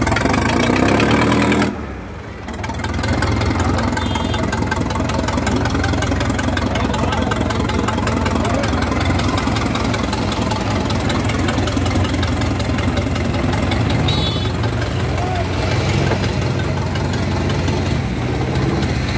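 Farmtrac 6055 tractor's diesel engine running steadily, with crowd voices over it. The sound briefly dips about two seconds in.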